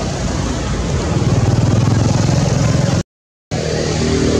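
A motor vehicle engine running, a low steady rumble, broken by a half-second drop to silence about three seconds in.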